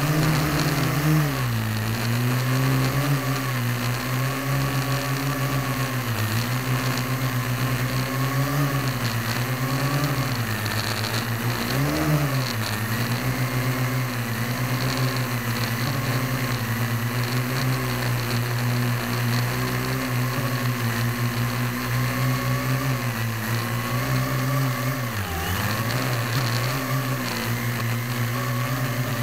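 Parrot AR.Drone 1.0 quadcopter in flight, heard up close from a camera on the drone: its four geared electric motors and propellers give a steady pitched hum. The pitch wavers up and down as the motors change speed, rising briefly about twelve seconds in and dipping a few seconds before the end.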